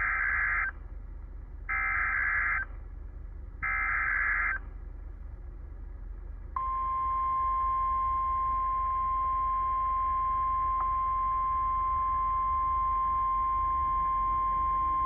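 NOAA Weather Radio emergency alert broadcast: three short screeching bursts of SAME digital header data, each about a second long and two seconds apart, then about two seconds later a single steady 1050 Hz warning alert tone that holds to the end. This is the tone sequence of the required weekly test.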